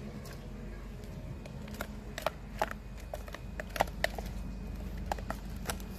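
A metal utensil knocking and scraping against a plastic blender jar as blended mixture is tapped out into a steel mixing bowl: a string of sharp clicks and taps, most of them in the second half, over a low steady hum.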